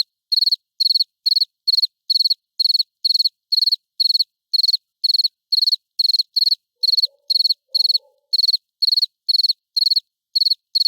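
A cricket chirping in a steady, even rhythm: short, high-pitched pulsing chirps, about two to three a second.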